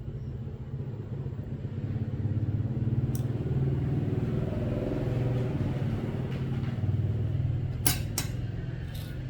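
A small motor running with a steady low buzz, growing louder about two seconds in. A few sharp clicks come near the end.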